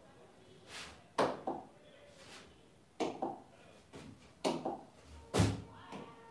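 Fingers tapping on the glass of an interactive touchscreen board: a run of short sharp knocks, several coming in quick pairs like double-taps, the loudest a little past five seconds in.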